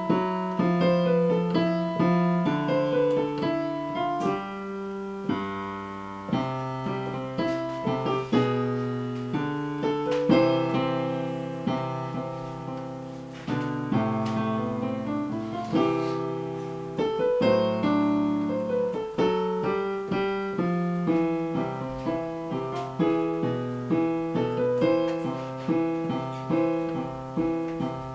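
Digital piano being played: a melody of notes struck one after another over held lower chords.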